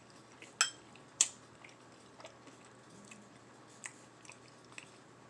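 Close-up mouth sounds of someone eating baked mozzarella sticks and fries: soft chewing with small wet clicks, and two sharp clicks about half a second apart near the start.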